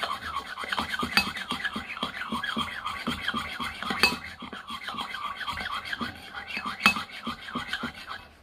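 A metal spoon stirring slime in a bowl in rapid, steady strokes, the slime freshly mixed with activator. The spoon clinks sharply against the bowl three times.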